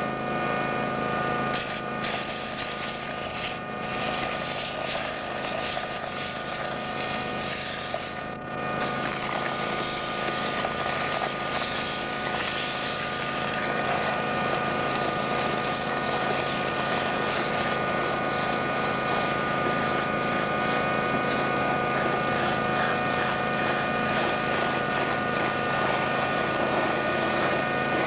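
Vacuum excavator running steadily: a constant machine drone with several steady tones over a rush of air, as its vacuum draws through the suction hose while soil is dug loose at the hole.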